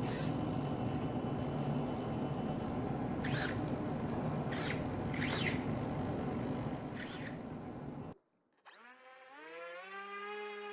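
An electric motor whirring steadily with a low hum, broken by a few short, higher buzzes. About eight seconds in it cuts off abruptly, and a tone with several pitches rises and then holds steady.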